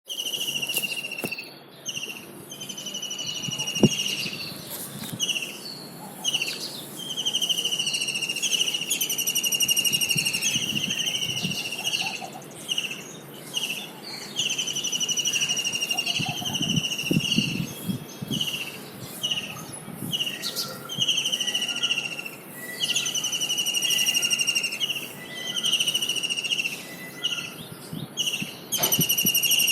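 Kingfisher calling: a high, rapid trill repeated over and over, each trill lasting about a second with short gaps between.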